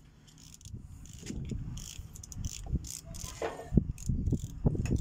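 Hand ratchet wrenches clicking on bolts around a metal gear housing, with metal tool clinks and knocks that grow busier towards the end.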